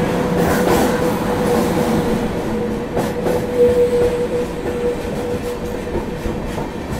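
Passenger train moving along a station platform, heard from an open coach door: rail wheels clattering under a steady rumble, with a single high whine that holds for about five seconds, loudest near the middle, then fades.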